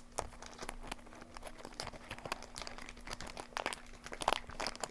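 Foil trading-card booster pack wrapper crinkling and crackling in irregular bursts as it is handled and opened, over a faint steady hum.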